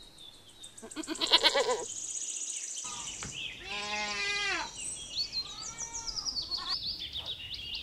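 Domestic goats bleating, a few calls with the loudest, wavering one about halfway through, over faint high chirping.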